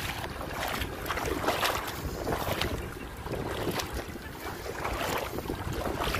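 Wind rumbling on the microphone, over irregular swishes of water.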